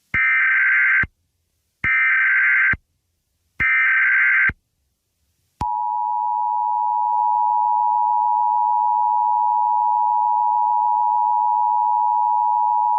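Emergency Alert System activation. Three SAME header data bursts of about a second each, buzzy digital tones with short gaps between them, encode the alert. Then, about five and a half seconds in, the steady two-tone EAS attention signal (853 and 960 Hz together) begins and holds, announcing the emergency message to come.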